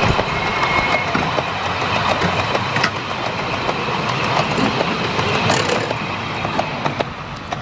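Miniature railway passenger carriages rolling past on the track: a steady rumble of wheels on rails with frequent clicks over the rail joints, easing off near the end as the last carriage goes by.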